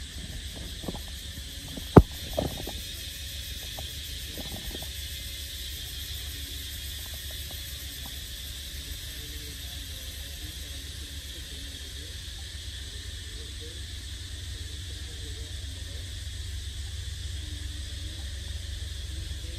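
Outdoor ambience: a steady low wind rumble on the microphone under a faint, steady high insect buzz, with one sharp click about two seconds in and a few faint knocks just after.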